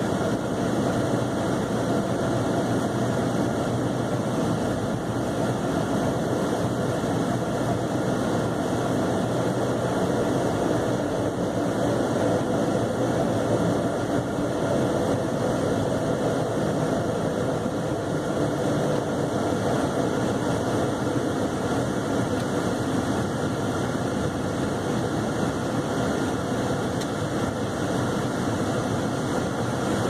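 Steady engine and road noise inside the cabin of a Chevrolet Cavalier driving at a constant pace on a snow-covered road.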